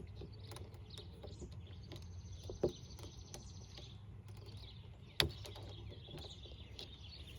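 Two sharp metallic clicks a few seconds apart, the second louder, as the cam is fitted onto the RV compartment lock cylinder. Small birds chirp steadily in the background.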